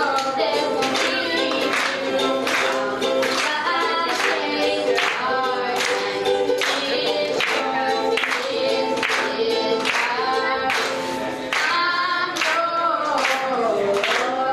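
A woman singing a pop song, accompanied by strummed ukulele in an even rhythm.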